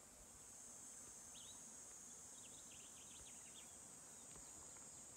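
Faint, steady, high-pitched drone of insects in the bush, with a few short high chirps about a second and a half in and again around three seconds in.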